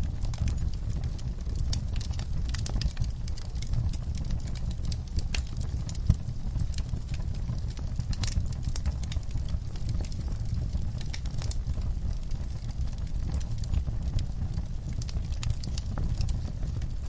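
Fire crackling: irregular sharp pops and snaps over a steady low rumble of burning, with one louder pop about six seconds in.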